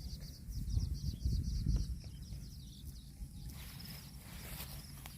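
Outdoor rural background: a rapid, high-pitched chirping that stops about three and a half seconds in, over an uneven low rumble.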